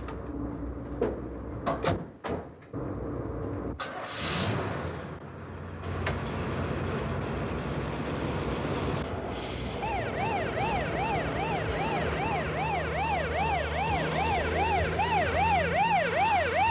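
A Chevrolet van-based ambulance: a few knocks and clicks, then its engine running, and about ten seconds in its electronic siren starts a fast yelping wail, rising and falling about three times a second and getting louder.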